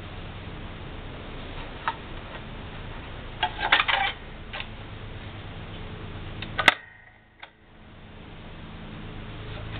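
Metal clicks and clatter as a punched metal tune disc is handled and seated on the spindle of an 1890s Ruckert Orphenion disc music box and its brass centre clamp is fitted. There are a few scattered clicks, a quick cluster of rattling clicks in the middle, and one sharp click about two-thirds of the way through, over a steady low hum.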